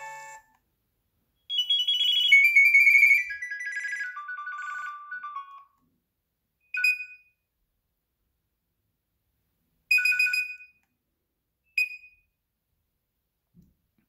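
Nokia 6100 mobile phone playing its ringtone previews through its small speaker while the tone list is scrolled. A melody cuts off at the very start, a descending run of electronic beeping notes plays from about a second and a half to nearly six seconds, and short two-note chirps follow three times.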